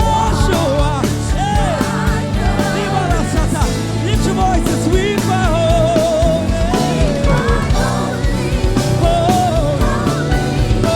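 Worship song played live by a band with a drum kit, a singer's wordless, gliding vocal runs with vibrato weaving over it.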